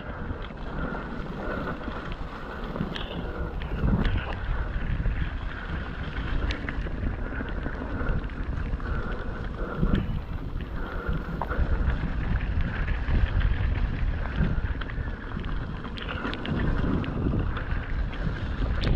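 Wind rushing over the camera microphone while a mountain bike rolls along a wet, rocky trail, with scattered clicks and knocks from the tyres and frame over the rough ground.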